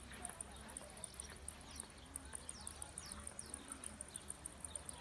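Faint, even high-pitched buzzing of insects in summer grass, pulsing about five times a second. A few short falling bird chirps come over it in the middle.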